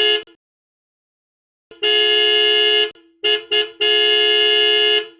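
Toyota Hilux car horn sounding in a series of honks: a blast cut off just after the start, a blast of about a second, two quick toots, then a longer blast of over a second, each a steady two-note tone.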